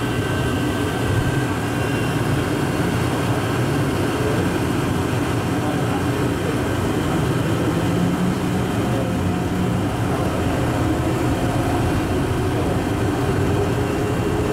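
Rubber-tyred automated people-mover train running through a tunnel, heard from inside the car: a steady rumble of tyres and drive, with a faint whine that rises slightly near the end.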